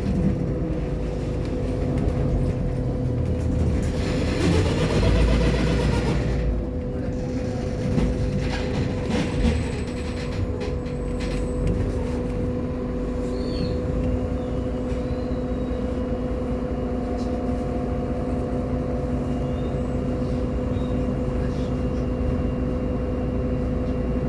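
Inside an Irisbus Agora L city bus: the engine and drivetrain run with a steady low hum and rumble. About four seconds in there is a short burst of hissing, and a few clicks and rattles follow.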